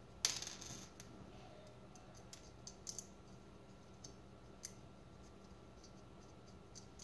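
Small metal bolts and nuts being turned by hand on a circuit board and metal plate: faint scattered clicks and scratches, with one louder scrape about a quarter second in.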